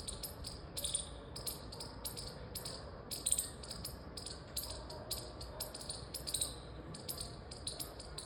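Rapid high-pitched chirping calls, several a second in an uneven run.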